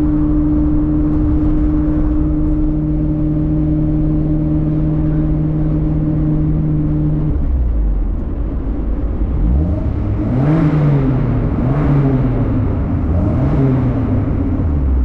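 1987 Alfa Romeo Spider 2000's twin-cam four-cylinder engine running through a rear straight pipe that replaces the back muffler, with the cat and one muffler still in place. The note holds steady for about seven seconds, then drops, then rises and falls three times as the engine is revved before settling back to a lower steady note.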